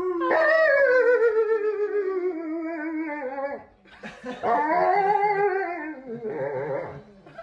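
Malamute making spooky, wavering howling calls, two long ones: the first, about three seconds long, slides slowly down in pitch; the second rises and then falls.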